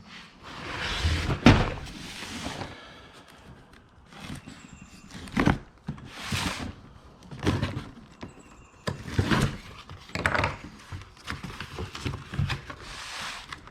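Objects being handled in and out of cardboard boxes: a string of separate knocks and thunks, with rustling and scraping in between.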